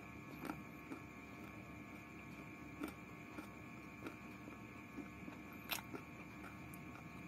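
Faint close-up chewing of a mouthful of pork and rice: scattered soft mouth clicks, with two sharper clicks about three and six seconds in, over a steady electrical hum.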